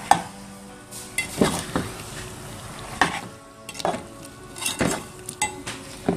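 Steel ladle scraping and knocking against a metal cooking pot as chicken is stirred and fried in oil with its spices, in irregular strokes about every half second to a second, over a low sizzle.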